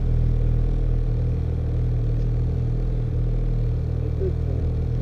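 Snowmobile engine running at steady, even low revs.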